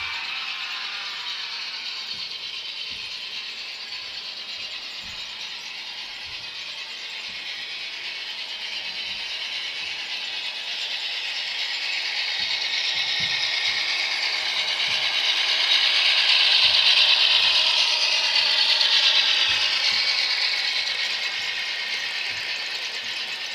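N scale model trains running on sectional track: a steady rattling whir of small motors and wheels, with scattered faint clicks, that grows louder as a train passes close by about two-thirds of the way through, then fades.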